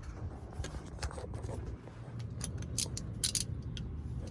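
Ratchet and 15 mm socket clicking and scraping on a car's oil drain plug, a cluster of sharp metal clicks past the middle, over a low rumble of handling noise.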